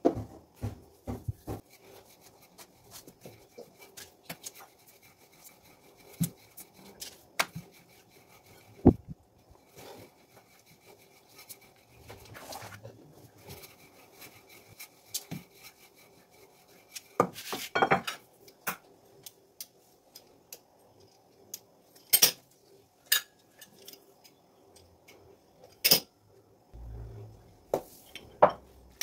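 Wooden rolling pin rolling out pastry dough on a board, with scattered sharp knocks and clicks of the pin and kitchen utensils against the board and short stretches of rubbing.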